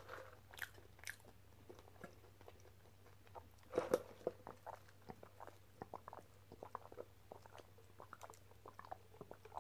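Faint, scattered mouth clicks and small sucking sounds of tea being sipped through a straw from a fast-food cup, with one louder sound about four seconds in.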